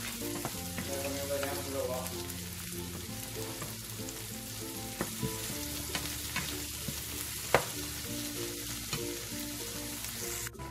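Onion, garlic and tomato sizzling in oil in a nonstick pan, stirred with a wooden spoon that clicks and scrapes against the pan now and then, with one sharper knock about seven and a half seconds in.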